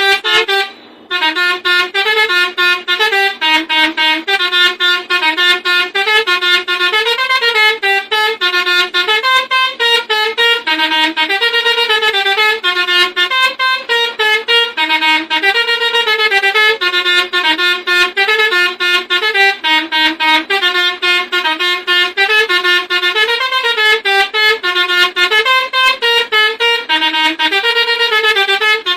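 Telolet bus horn: a Basuri multi-tone horn module sounding six horn trumpets, playing a quick melody of stepping notes. It pauses briefly about a second in, then runs on without a break.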